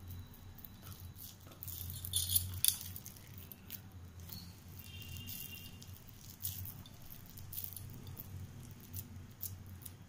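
Hands squeezing and pressing a mixture of boiled noodles and chopped vegetables into cutlets: soft rustling and squishing with scattered light clicks, loudest about two seconds in.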